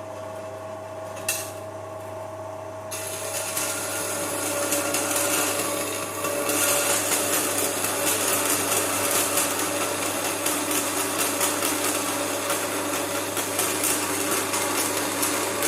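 Hafco Metalmaster BS-4A metal-cutting bandsaw, used upright with its table, running with a steady motor hum. After a click about a second in, the blade starts cutting metal pushed into it by hand about three seconds in, making a rasping cutting noise that grows louder a few seconds later and carries on.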